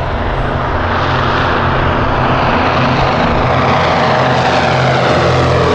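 Twin radial piston engines and propellers of a PBY-5A Canso flying boat, running with a loud, steady drone.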